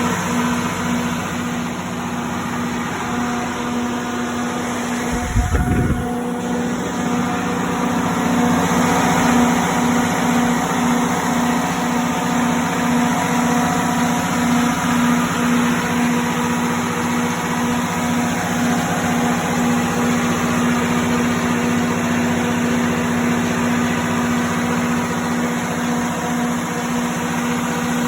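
John Deere diesel engine of a Katolight 180 kW generator set running at a steady speed, an even engine hum with a regular pulsing beat. About five seconds in, a brief low thump rises over it.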